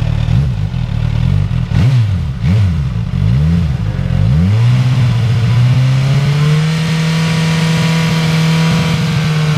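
Suzuki GSX-S1000's inline-four engine revving through its stock exhaust: several quick throttle blips, then a climb to a steady hold at about 5000 rpm for a sound-level reading of about 93 dB.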